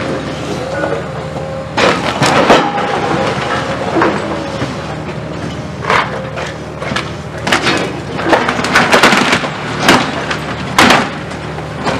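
Hydraulic demolition excavator's diesel engine running steadily while its grapple breaks into the building, with repeated cracks and crashes of masonry and concrete rubble breaking and falling, coming thickest in the second half.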